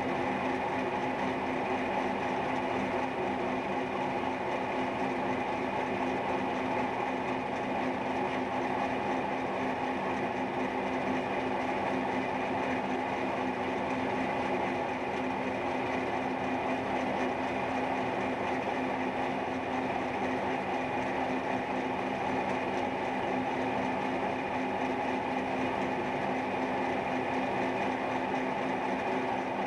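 Cincinnati milling machine running steadily with a constant hum and held tones, its angled cutter cutting a semi-hemispherical ball socket into steel while the rotary table turns the part.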